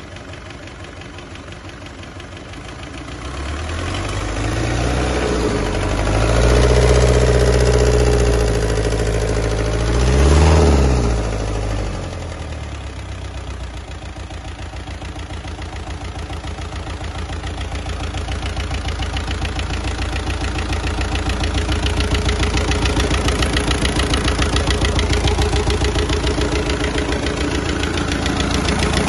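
1992 Isuzu 4BD2TC turbocharged four-cylinder diesel engine running on test. It idles, is revved up and held at higher speed from about three seconds in, then is blipped once more near ten seconds. It then drops back to a steady idle.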